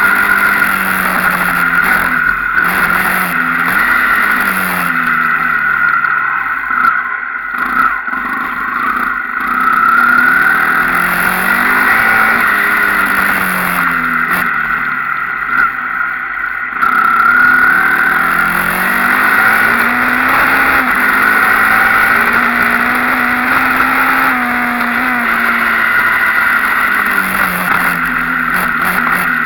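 Enduro motorcycle engine being ridden hard, the revs climbing and falling again and again with the throttle and gear changes, easing off twice to low revs before picking up again.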